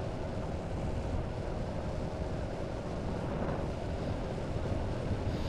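Honda Forza 350 scooter's single-cylinder engine cruising at steady speed, a continuous drone blended with wind and road noise.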